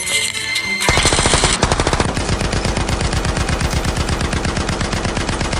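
Machine-gun fire sound effect: a rapid, even stream of shots that starts about a second in and keeps going without a break.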